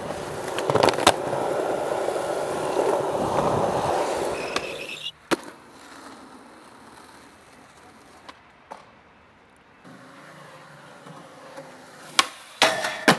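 Skateboard wheels rolling over concrete, with a few sharp clacks of the board, ending in a loud clack about five seconds in. After a quieter stretch, several sharp board clacks come near the end.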